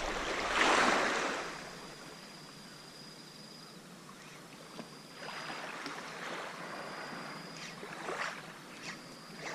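Small waves washing and lapping against shoreline rocks, one louder wash about a second in and softer ones later, with a few small splashy clicks near the end.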